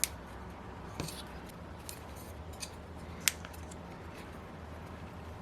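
A few light clicks and clinks of small metal engine parts and tools being handled on a workbench during disassembly, the sharpest about three seconds in, over a faint steady low hum.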